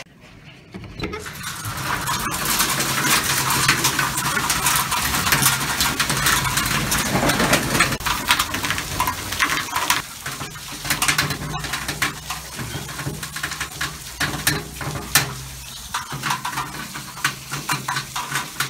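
Small ice pellets falling with rain, a dense pattering of many tiny clicks. It grows much louder about a second in, as the balcony door is opened.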